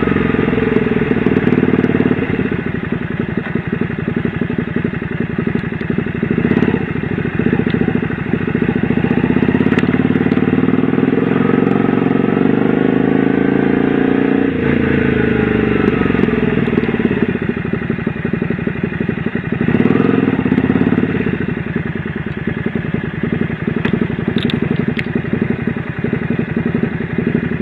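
Honda V-Twin Magna 250's V-twin engine running under way, its pitch rising and falling again and again with the throttle, under steady riding noise.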